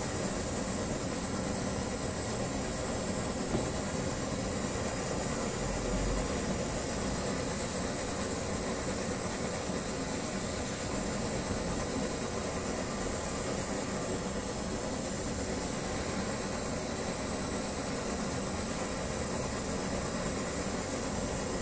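Brass pressurised kerosene stove (Primus-type babour) burning, giving a steady, even hiss.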